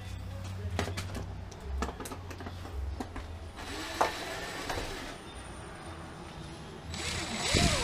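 Hand tools working on camper wall fittings: scattered clicks and knocks, with two stretches of scraping, the louder one near the end, over a steady low hum.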